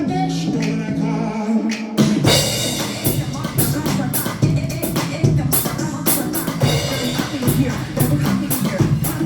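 Lively church-style music with singing and a drum kit. After about two seconds of held chords and voice, the full band comes in with a loud hit and a driving beat.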